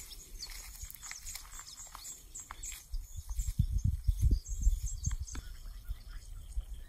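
Birds calling and chirping in short, high notes, with a run of low thuds and rumbles from about three to five and a half seconds in.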